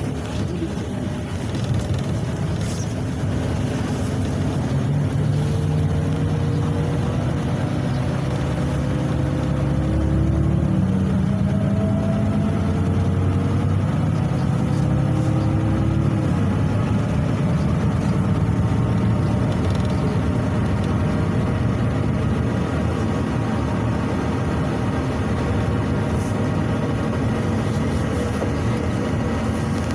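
Volgabus-5270.G2 LNG city bus heard from inside the cabin: a rising engine and drivetrain whine as the bus accelerates, dropping in pitch twice, about ten and sixteen seconds in, at gear changes. It then settles into steady cruising with road noise.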